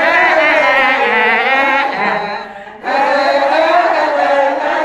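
A group of women singing and chanting together, many voices at once with wavering pitch. The voices drop out briefly about two and a half seconds in, then start up again.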